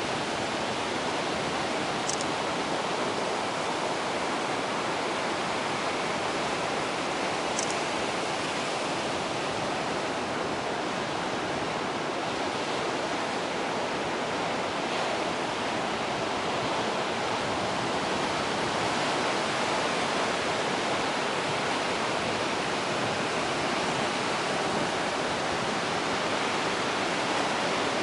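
Ocean surf breaking and washing over a rocky shore: a steady rushing of waves, with two brief high squeaks a few seconds apart.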